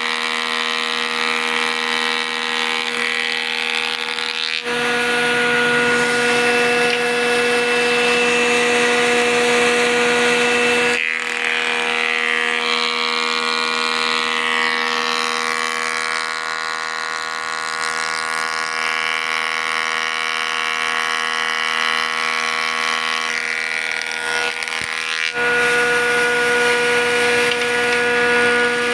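Combination jointer-planer woodworking machine with a side boring chuck running, a steady motor hum and whine. The sound breaks off and resumes abruptly about 5, 11 and 25 seconds in.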